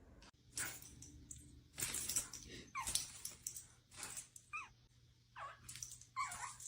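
A dog whimpering: several short, high whines, spaced out, among small scattered noises.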